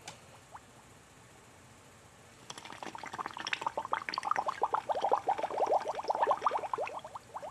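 Underwater cartoon sound effect: a fast run of short rising bubble-like blips that starts about two and a half seconds in and stops just before the end, after a single short tick at the very start.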